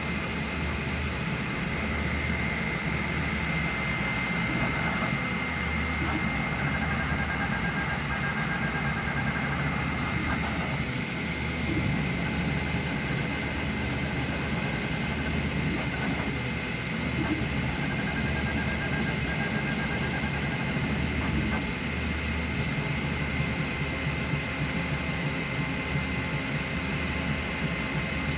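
3D printer running a print: the steady whir of the print head's cooling fans with a high steady tone, over a low hum from the motors that swells and drops irregularly as the head moves.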